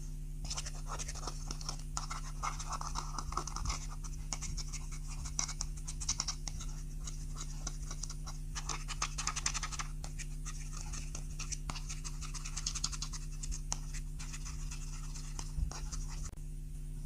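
Clear slime being worked by hand or tool: a dense, scratchy run of small sticky clicks and crackles. It starts about half a second in and stops shortly before the end.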